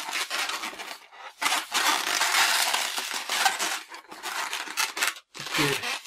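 Latex 260 modelling balloon rubbing against itself and the hands as a pinch twist is pushed into a loop: a dense, scratchy crackle, with short breaks about a second in and near the end.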